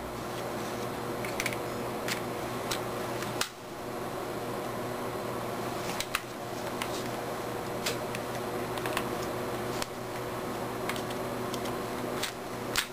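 Scattered light clicks and taps, about a dozen, as a rifle fitted with a nylon VLTOR tactical bipod and rail accessories is handled and turned in the hands, with a sharper click near the end. A steady mechanical hum underlies it.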